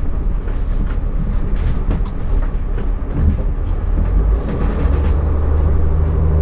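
RV driving slowly: a steady low rumble from the engine and road, with repeated rattles and knocks from the rig.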